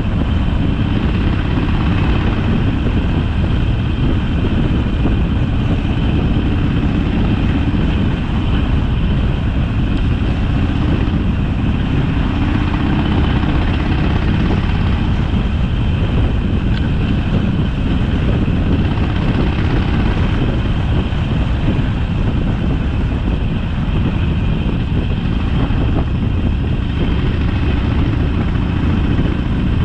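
Harley-Davidson Sportster V-twin engine running steadily while the motorcycle is ridden, heard from the bike.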